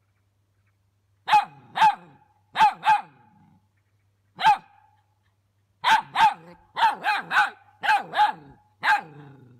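A dog barking: about a dozen short, high, sharp barks, many in quick pairs, with brief pauses between the groups.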